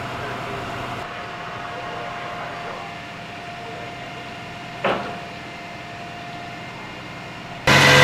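Steady low hum of idling vehicles with a faint steady whine, and a single sharp knock about five seconds in. Near the end a flatbed tow truck's engine starts up loud and close and runs on.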